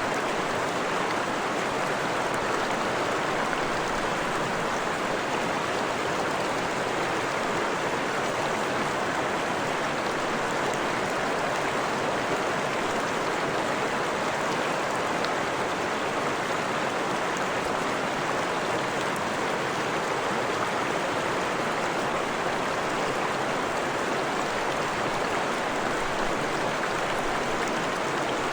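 Freshwater forest stream flowing, a steady, even rush of water.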